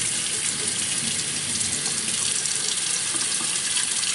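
Kitchen faucet running steadily, its stream splashing over a clear plastic bottle held under it as the bottle is rinsed in a stainless steel sink.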